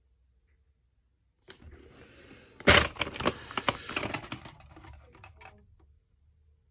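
A plastic clamshell VHS case being opened and the cassette taken out. After a second and a half of quiet, there is a run of plastic clicks and crackling with one sharp snap near its start, and it dies away after about four seconds.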